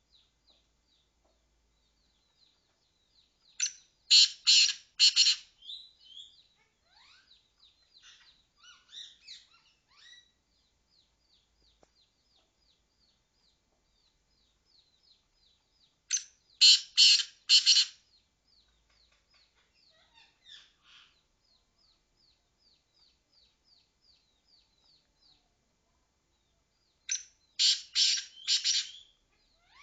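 A francolin (teetar) calling: three loud bouts of quickly repeated shrill notes, about eleven to twelve seconds apart. Faint rapid chirping continues between the bouts.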